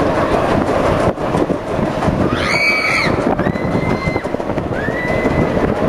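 Riders screaming on a spinning star-shaped thrill ride: three high held screams, the first about two seconds in and the last near the end, over a steady rumble of ride noise.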